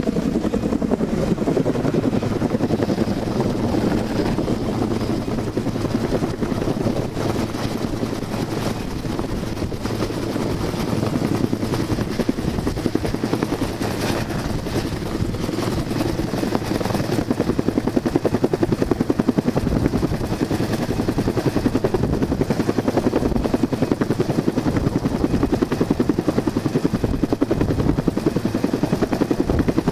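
Helicopter hovering close overhead, its rotor beating rapidly and steadily, growing a little louder about halfway through.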